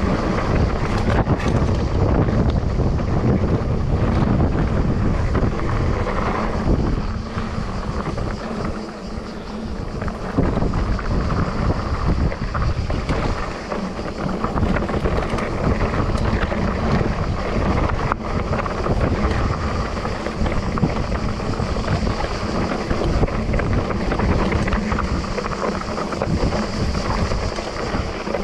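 Wind buffeting the microphone of a mountain bike descending a dirt singletrack, over the rumble of the tyres on the ground and rattling of the bike, with a few sharp clicks from bumps.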